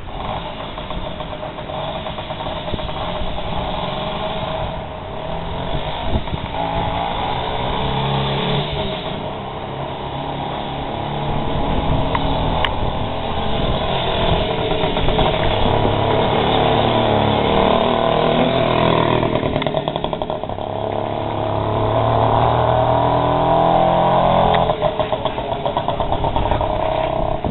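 Riga-4 moped's small two-stroke engine running as it is ridden past, its note rising and falling with the throttle. It is loudest from about halfway through until near the end.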